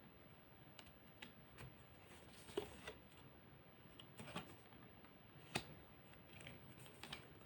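Faint, scattered clicks and taps of tarot cards being handled and laid out, about a dozen irregular ticks with the sharpest a little past the middle.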